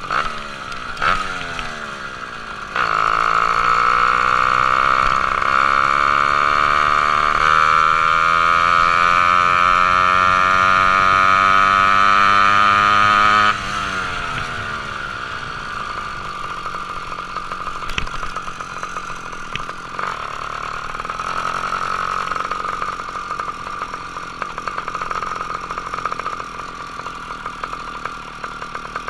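Ported two-stroke motorized-bicycle engine under way: about three seconds in the throttle opens and it gets much louder, its pitch climbing steadily for about ten seconds as the bike accelerates. Then the throttle is backed off suddenly, and it drops to a quieter, steadier running note.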